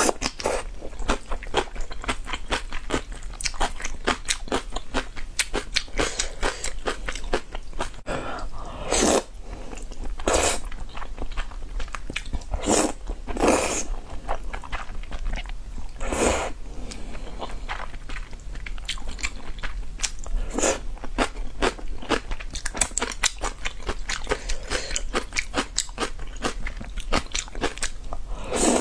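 Close-miked eating of spicy instant noodles with kimchi: fast wet chewing clicks with some crunch, broken by several short, louder slurps of noodles.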